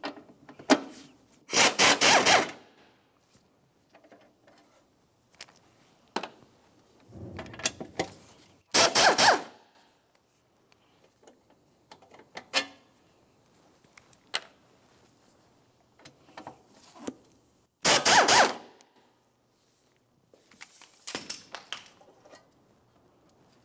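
Ratchet wrench clicking in four short bursts of about a second each as the battery tray's mounting bolts are unscrewed. Scattered light metallic clicks and rattles of the socket and loose bolts come between the bursts.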